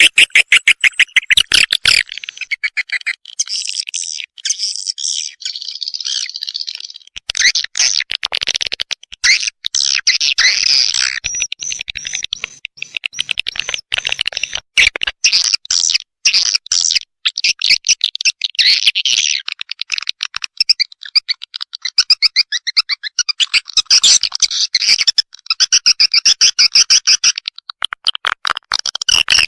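Swiftlet lure call: recorded swiftlet twittering, dense rapid trains of high chirps and clicks broken by short pauses, played to attract swiftlets into a swiftlet house.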